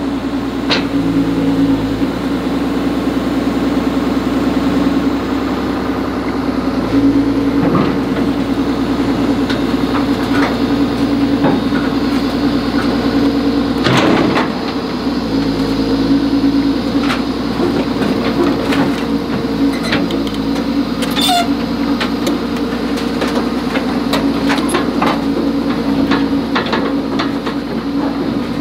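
Excavator's diesel engine running steadily under shifting load, its note changing every few seconds, with scattered metal clanks and knocks, the loudest about 14 seconds in.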